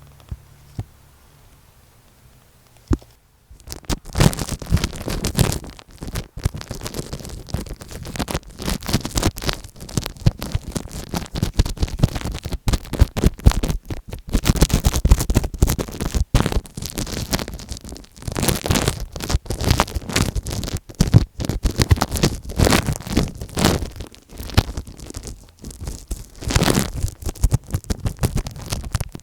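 Close scratching and rubbing on tape stuck over an Apple EarPods earphone microphone, in dense irregular strokes. It starts about four seconds in, after a quiet hiss with a couple of small clicks.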